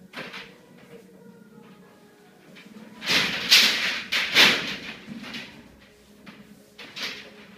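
Coil of plastic PEX underfloor-heating pipe scraping and rustling as it is turned and unrolled over foil-faced floor insulation, loudest in a run of rough scrapes about three to five seconds in, with a few light knocks around it.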